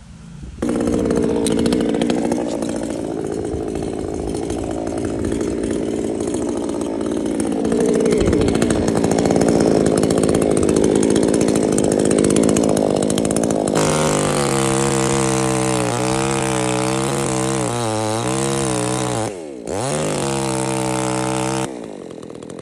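Chainsaw running at high revs and cutting, its pitch wavering up and down. Later in the cut its note turns clearer and steadier, dips sharply for a moment and picks back up, then the saw stops shortly before the end.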